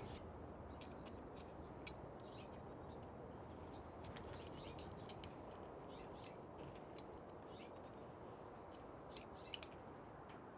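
Faint, scattered small clicks and taps of screws and a driver being handled while the top Picatinny rail is lined up and its screws started, with one slightly sharper click about nine and a half seconds in.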